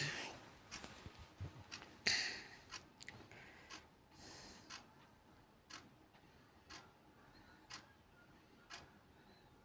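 Puris frying in hot oil in a kadai, with the metal slotted spoon clattering against the pan twice in the first two seconds. Faint, evenly spaced ticks follow, about one a second.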